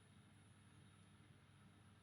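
Near silence: a faint steady hiss with a low hum and a thin, steady high whine.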